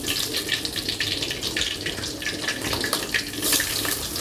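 Pieces of smoked fish frying in hot oil in a wok: a steady sizzle with many small crackles.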